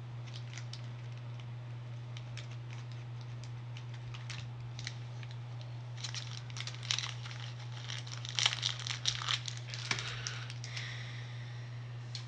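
Pokemon trading cards being handled and arranged side by side: scattered light clicks and rustles that get busier and louder from about halfway in, over a steady low hum.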